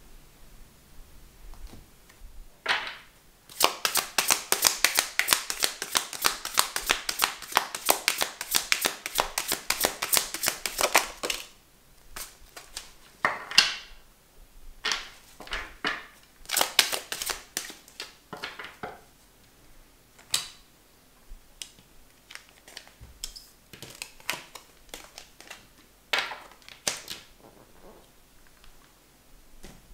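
A deck of tarot cards being shuffled, a fast, dense run of card clicks lasting about eight seconds, followed by single cards being tapped and laid down on a tabletop.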